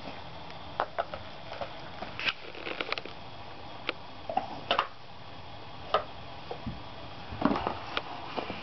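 A dozen or more light clicks and taps at uneven intervals, over quiet room tone.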